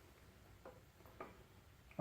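Near silence: room tone, with two faint light clicks a little over half a second apart near the middle.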